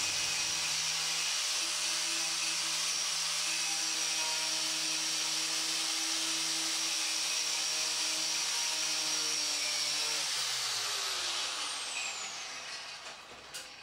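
Angle grinder with a wire brush attachment running steadily as it scours rust off an overhead iron bar, a high, even whine with the brush hissing on the metal. About ten seconds in it is switched off and winds down, its pitch falling as it fades.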